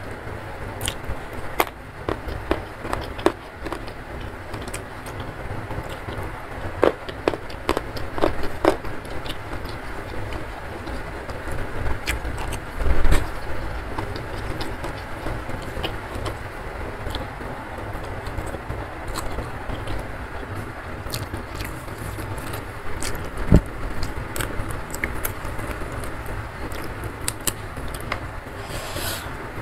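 Close-up eating sounds of a person eating by hand: chewing, crunching and mouth clicks as rice, pea eggplants and raw leafy vegetables are eaten, over a steady low background hum. Two louder dull thuds stand out, about 13 and 24 seconds in.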